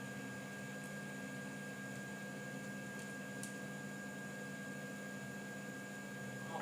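Steady electrical hum with a thin high whine and hiss, with a few faint small ticks.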